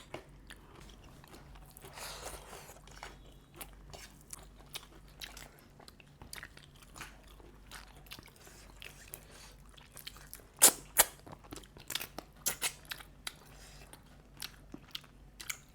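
Crab shell being cracked and picked apart by hand, with close chewing and small eating clicks; a few louder sharp cracks come past the middle.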